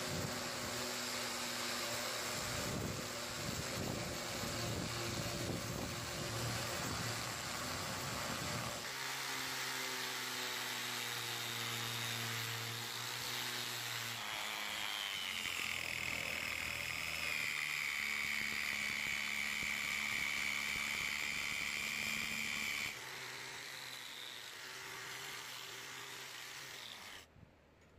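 Power tools grinding and sanding a steel axe head: first a small rotary tool with a grinding stone working inside the axe's eye, then a sanding disc on a grinder working the cheek, with a high steady whine through the middle. The sound drops lower a few seconds before the end and stops suddenly.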